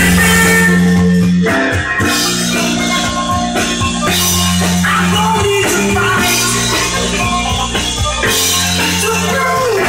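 Band music with held bass notes and drum hits, playing from a vinyl LP on a Kenwood KD-500 direct-drive turntable.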